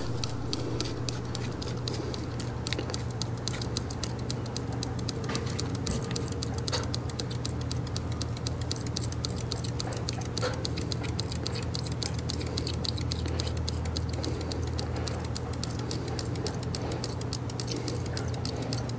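Nu-Calgon Thermo-Trap heat-absorbing compound foaming on a copper suction line, a dense fizzy crackle of tiny bubbles popping, over a steady low hum.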